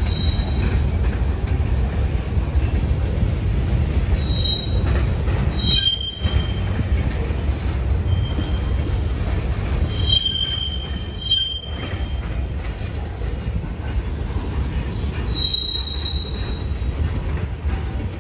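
Freight train of autorack cars rolling past: a steady low rumble of wheels on rail, with short high-pitched wheel squeals breaking in several times.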